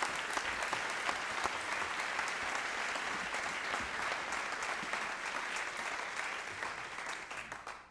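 Audience applauding, a steady patter of many hands clapping that dies away near the end.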